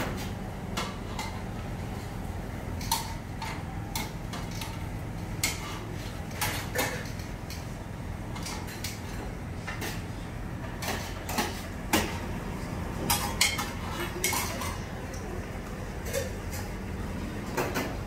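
Irregular clinks and clatters of kitchen utensils against plates and trays as food is plated at a kebab counter, over a steady low hum.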